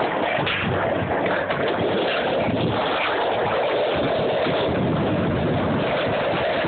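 Skateboard wheels rolling on asphalt: a steady rolling rumble with wind on the microphone.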